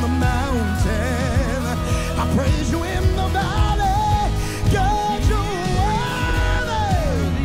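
Live worship band playing, with drums, keyboard and a lead singer holding and bending long notes with wide vibrato; one note slides down near the end.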